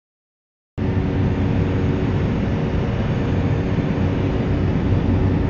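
Airplane engine running steadily, a constant loud drone with a low hum, cutting in abruptly just under a second in.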